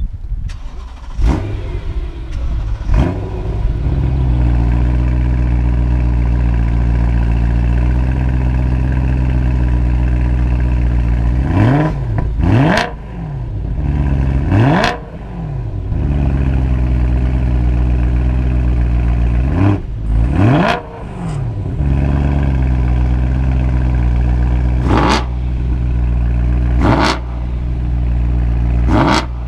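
BMW M3 E92 V8 engines with modified exhausts idling and being blipped: about ten quick revs that rise sharply and fall back to a steady idle, two of them coming in quick pairs.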